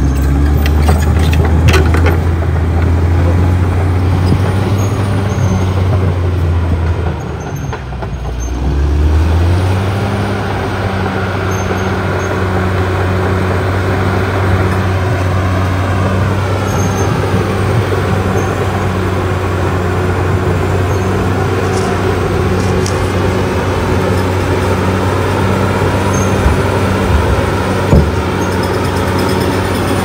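Caterpillar D6R XL bulldozer's diesel engine running under load while the machine pushes soil. The engine note sags about seven seconds in and picks up again a couple of seconds later, then holds steady with an even rhythmic clatter from the moving steel tracks.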